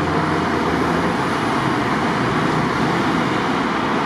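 Steady road traffic noise: cars driving past on a city street.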